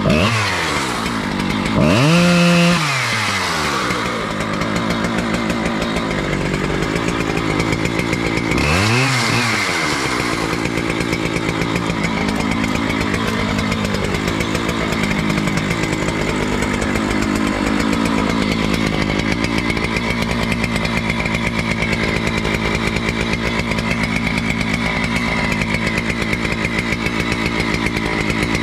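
Two-stroke chainsaw revving up and dropping back twice in the first ten seconds, then idling steadily.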